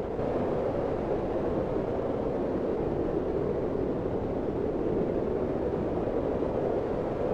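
Strong wind blowing steadily in a snowstorm: an even, loud rush of air, strongest in the middle-low range, with no gusts or breaks.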